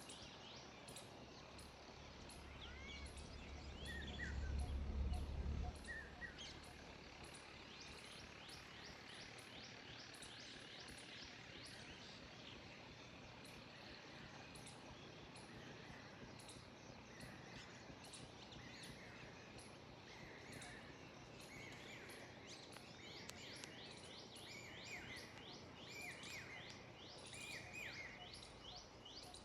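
Faint birdsong: scattered short chirps and rapid repeated high trills, denser near the end. A brief low rumble about four to six seconds in.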